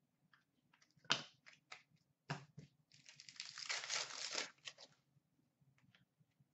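Plastic wrapper of an Upper Deck hockey card pack crinkling and being torn open: sharp crackles about one and two seconds in, then a longer tearing stretch of about a second and a half.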